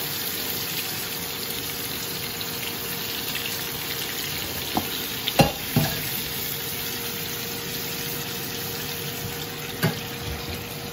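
Whole koi fish (climbing perch) shallow-frying in hot oil in a pan, a steady sizzle. A few sharp knocks of a spatula against the pan come in the middle and again near the end, the loudest about halfway through.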